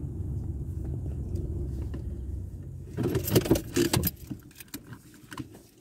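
A car's low engine and road rumble that dies away about three seconds in, followed by a loud burst of jangling and clicking, like a bunch of keys being handled as the ignition is switched off, thinning to a few scattered clicks.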